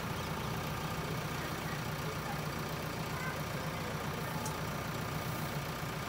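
Diesel engine of a JCB 3DX backhoe loader idling steadily.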